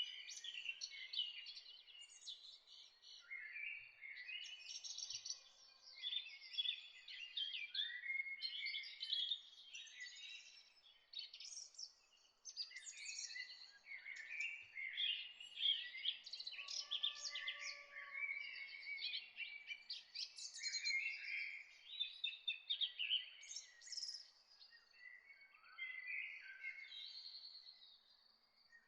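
A chorus of many songbirds chirping and trilling at once, dense and continuous with overlapping high-pitched calls.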